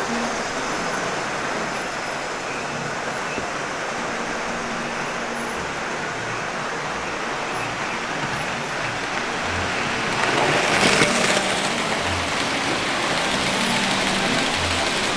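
00 gauge model trains running on the layout: a steady whir and rumble of small electric motors and wheels on the track, with a louder rush for about two seconds around ten seconds in.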